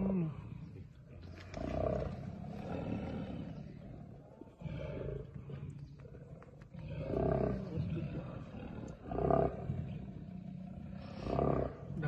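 Male Bengal tigers growling and roaring in a territorial face-off, in several short bursts a few seconds apart.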